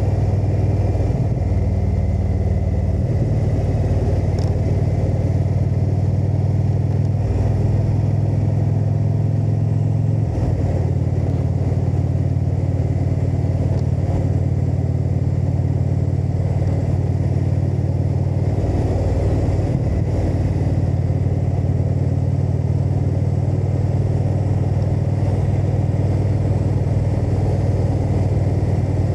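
Indian motorcycle's V-twin engine running under way, heard from the rider's seat, its note changing pitch with throttle or gear changes near 3, 10 and 19 seconds in.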